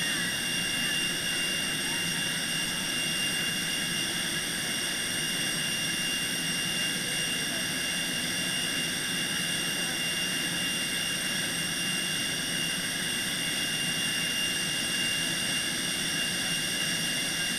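Steady turbine-type whine from aircraft equipment, made of several fixed high-pitched tones that hold unchanged in pitch and level.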